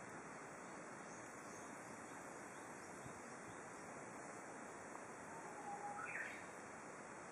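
A Japanese bush warbler sings one phrase about five seconds in: a held low whistle that breaks into a quick rising note. A steady faint hiss of outdoor background noise lies under it.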